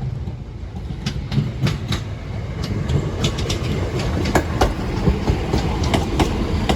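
Diesel passenger train running over the level crossing, its wheels clacking over rail joints above a low rumble, with the clacks getting louder and more frequent.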